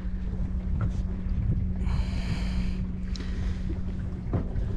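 Wind buffeting the microphone on a boat, over a steady low hum, with small clicks and rustles from hands working a fish out of a landing net. A brief hiss comes about two seconds in.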